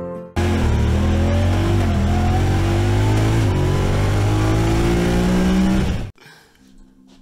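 Side-by-side utility vehicle's engine pulling along a road, its pitch climbing as it speeds up and dipping briefly twice, over wind and road noise. It starts abruptly just after the beginning and cuts off suddenly about six seconds in.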